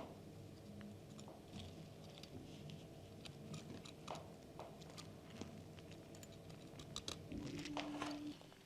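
Light clicks, taps and crinkles of small plastic model-car parts being handled and fitted, with a brief low hum a little after seven seconds in.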